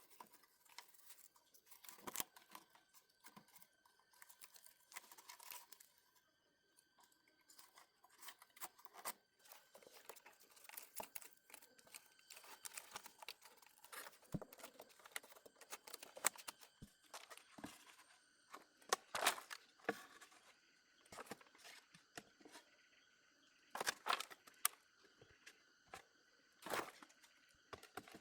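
Irregular rustling and crackling with scattered light knocks, as of material being handled and worked by hand. A faint steady high tone runs underneath.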